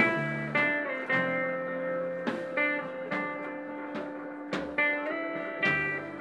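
Live band playing an instrumental passage between sung lines: guitar notes picked about every half second and left ringing over low sustained notes.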